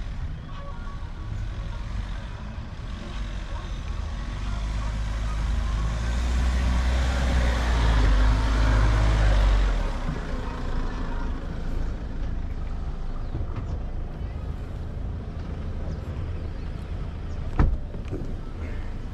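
Mahindra Thar 4x4 driving off-road: a low engine rumble that swells to its loudest about eight to nine seconds in, then eases back. A single sharp knock comes near the end.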